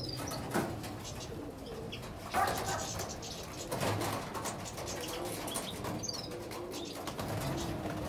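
A mixed flock of small finches, mainly European goldfinches with canaries, chirping and calling in an aviary, with the flutter of wings as some birds fly about.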